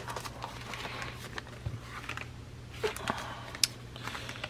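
Paper rustling with small clicks and taps as craft papers are pressed flat and a plastic glue bottle is picked up on a work table.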